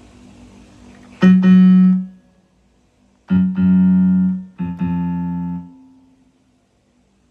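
Akai MPK Mini Play keyboard playing a piano-like built-in sound: one note or chord held for under a second about a second in, then a few more struck and held over the next two seconds before fading out.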